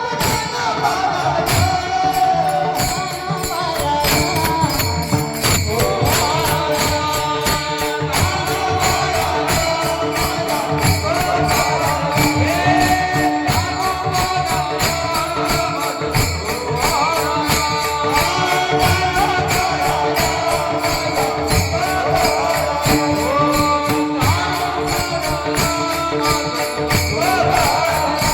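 Devotional kirtan music: jingling hand percussion keeps a fast, even beat over a held drone and a wavering melody line.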